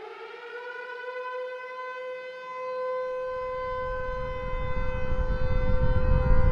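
Air-raid siren winding up and settling into a steady wail, with a deep rumble coming in underneath about halfway through and growing steadily louder.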